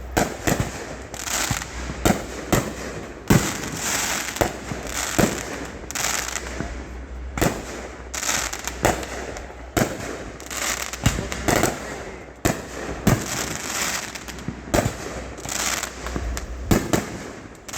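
Fireworks display: aerial shells bursting one after another, a sharp bang about every second with crackling between them.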